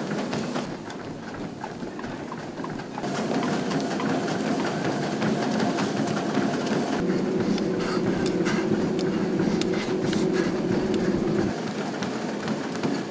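Treadmills running, with footfalls on the moving belts over a steady rumble; it gets louder about three seconds in.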